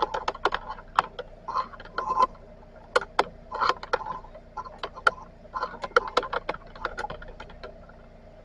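Irregular clicks, ticks and light rattles of equipment being handled, several a second in uneven clusters, over a faint steady hum.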